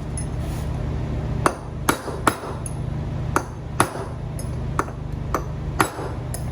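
Hammer striking a punch to drive the old bearing race out of a John Deere 24T baler wheel hub: a string of sharp, ringing metal-on-metal blows about half a second apart, starting about a second and a half in.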